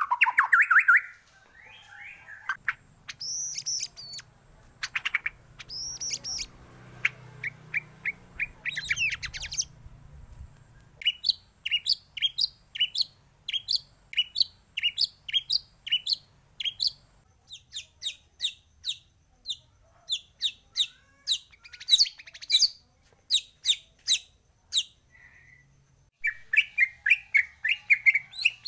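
White-rumped shama song: a varied run of clear whistles and chirps. Through the middle come quick falling chirps about two a second, and near the end a fast trill.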